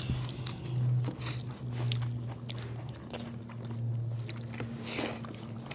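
Close-up chewing and biting sounds of people eating chicken and dhido by hand: scattered short wet clicks and smacks over a low steady hum.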